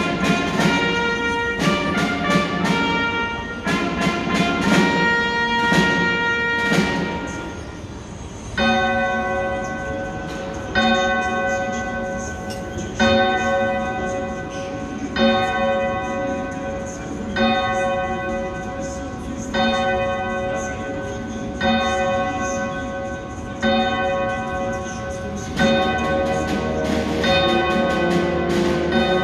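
Brass band music with sharp percussion hits for about the first eight seconds, then a bell tolling slowly, about one stroke every two seconds, each stroke ringing on until the next.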